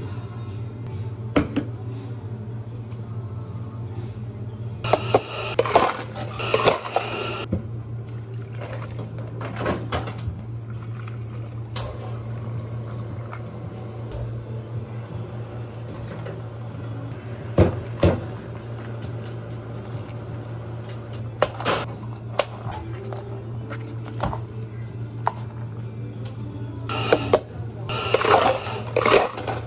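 Ice cubes clattering into clear plastic cups in two bursts, with the odd sharp knock of cups and tools set down on the counter, over a steady low hum of cafe equipment.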